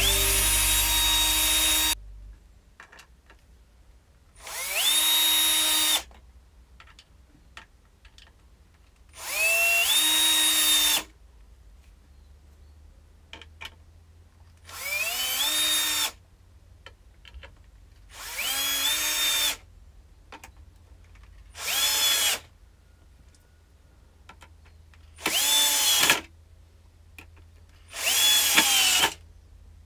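Power drill run in eight short bursts of one to two seconds, spaced a few seconds apart. Each burst winds up quickly in pitch, holds at speed and stops, with small handling clicks in the gaps, as when working pallet wood.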